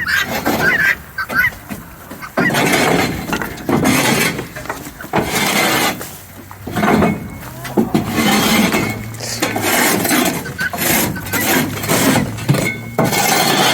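A hand tool scraping and chopping dried chicken droppings off a slatted coop floor, in repeated rough, crackly scrapes, with a few hen calls near the start.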